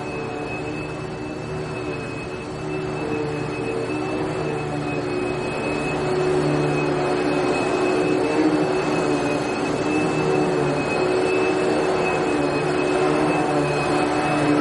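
Vacuum cleaner running steadily: a constant rush of air with a high whine and a lower motor hum, growing slightly louder a few seconds in.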